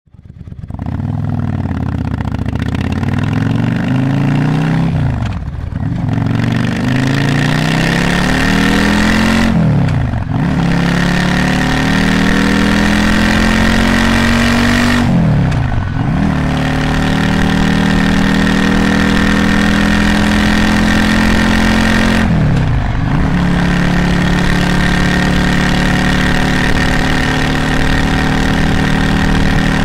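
Motorcycle engine pulling away and accelerating through the gears: its pitch climbs in each gear and drops sharply at four gear changes, then holds steady at a cruising speed for the last several seconds.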